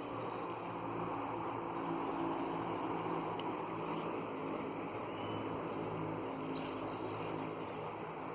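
Crickets trilling in one continuous high, steady tone, over a steady haze of outdoor background noise with a faint low hum.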